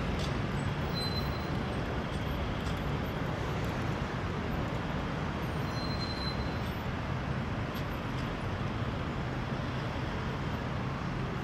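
Steady city road-traffic noise, with cars and taxis running through a junction and a constant low engine hum. Two brief high-pitched squeaks come through, about a second in and again about six seconds in.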